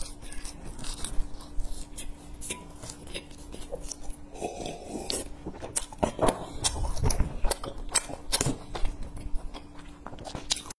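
Close-miked chewing of crunchy food: crisp crackles and mouth clicks in irregular bursts as a bitten piece is chewed.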